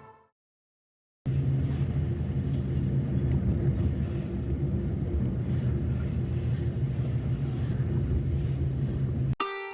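Vehicle engine running steadily with road rumble. It starts abruptly about a second in and cuts off just before the end.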